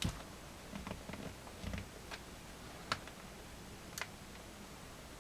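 A few faint, sharp little clicks spread over several seconds: a laptop's plastic screen bezel being pried with fingers, its snap clips working against the lid.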